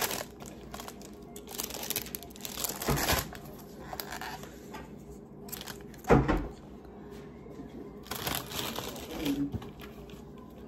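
Paper being handled and crinkled close to the microphone, in several short irregular bursts, with one louder knock about six seconds in.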